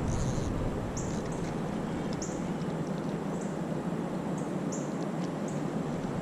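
Small bird chirping, short high chirps about once or twice a second at uneven spacing, over a steady outdoor hiss.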